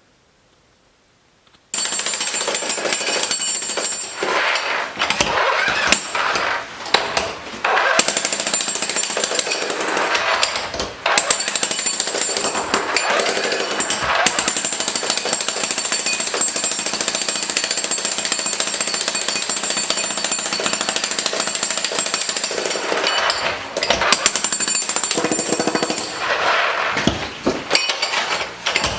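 Jackhammer breaking up concrete curbs. It starts about a second and a half in after a near-silent start, then runs almost without pause, with a few short breaks.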